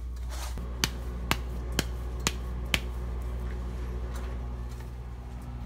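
Hands slapping a ball of wet corn masa between the palms to flatten it into a tortilla: five sharp pats about two a second, then softer handling, over a steady low hum.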